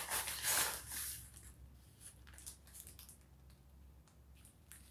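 Padded paper mailer envelope crinkling and tearing as it is pulled open, loudest in the first second, then faint scattered crackles as the plastic-wrapped item inside is handled.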